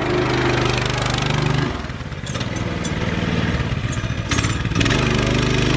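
Small gasoline engine of a child's go-kart running hard. Its level dips and swells once as the throttle changes, while the kart is stuck on something caught underneath it.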